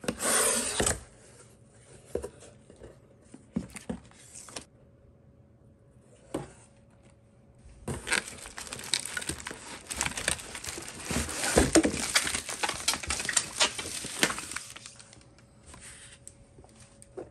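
Packaging being opened: wrapping crinkling and tearing, with scattered handling clicks. There is a short rush at the start and a long stretch of dense crinkling midway that dies away about two-thirds of the way through.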